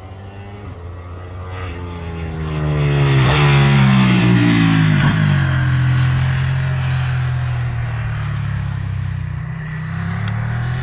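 Ducati 959 Panigale's L-twin engine accelerating toward the listener, its pitch climbing. It passes about three to five seconds in, where it is loudest and the pitch drops sharply, then it fades as the motorcycle rides away.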